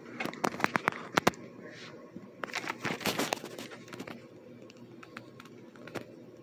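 Emerson Traditional Snugger ceiling fans running with a steady low hum, broken by two bursts of quick, irregular clicks and taps, the first right at the start and the second about two and a half seconds in, with a few single clicks after.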